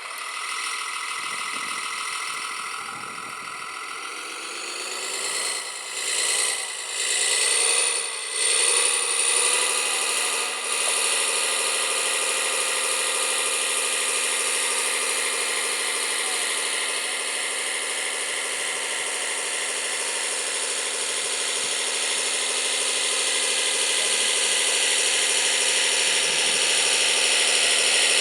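Motor of a radio-controlled construction model running with a whine. It surges several times in the first few seconds, then holds a steady pitch from about ten seconds in, growing slightly louder toward the end.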